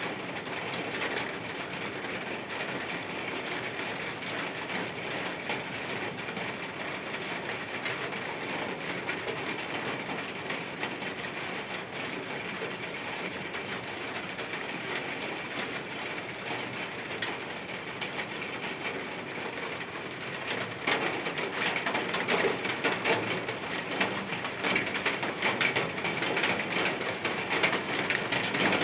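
Steady rain falling, growing heavier and louder about two-thirds of the way through, with many fine drop hits.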